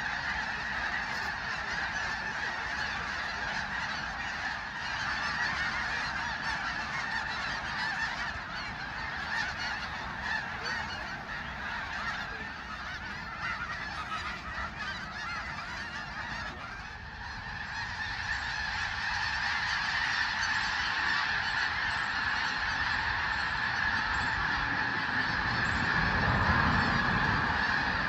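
A large flock of geese honking continuously in a dense, overlapping chorus, which swells louder about two-thirds of the way through. A brief low rumble comes near the end.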